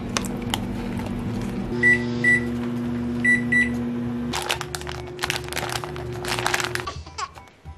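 Microwave oven running with a steady hum, sounding four short high beeps in two pairs about two and three and a half seconds in. Then crinkling and crackling of a plastic wrapper being pulled open on a triangle rice ball.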